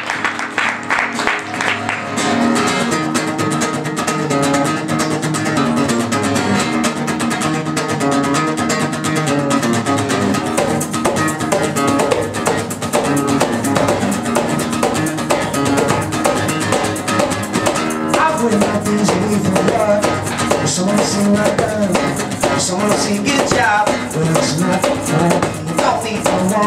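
Acoustic guitar strummed in a steady rhythm, with a cajón slapped by hand keeping time: an instrumental intro ahead of the vocals.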